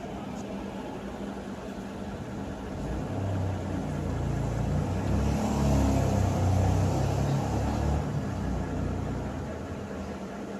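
A low rumble that builds over a few seconds, peaks about six seconds in and fades away, typical of a vehicle passing by, over a faint steady hum.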